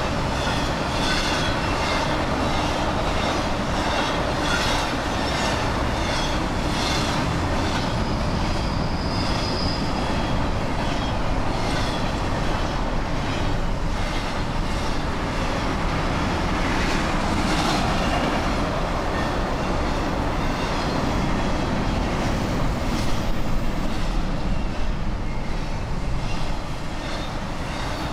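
Freight train cars rolling past at steady speed, a continuous rumble with repeated clacks of the wheels over rail joints. A brief high wheel squeal comes about nine seconds in.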